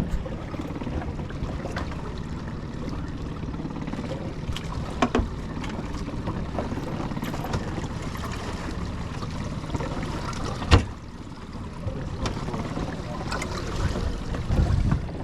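Fishing boat's motor running steadily at low speed, with water and wind noise on the microphone. A few sharp knocks on the boat, the loudest about eleven seconds in.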